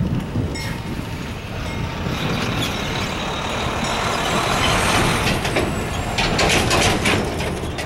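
Tractor-trailer driving past close by, its noise swelling to a peak about five seconds in, followed by a rapid rattling clatter as the trailer goes by.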